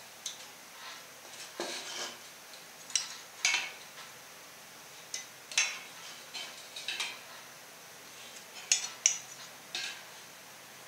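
Scattered light clicks and taps of a metal speed square being set and shifted against a square steel tube, with a few short scratchy strokes of a marker. The loudest taps come close together about three seconds, five and a half seconds and nine seconds in.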